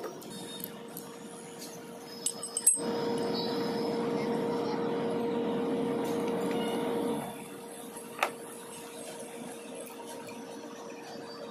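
Steel hand tools clinking against gearbox parts over a faint steady hum. For about four seconds in the middle, a louder steady rushing noise starts and stops abruptly.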